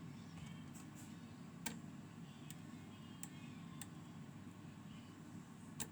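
Faint, irregular metallic clicks of a lock pick and tension wrench working the pins inside a Goal pin-tumbler lock with gin drivers and mushroom key pins, about five or six separate ticks over a low steady hum.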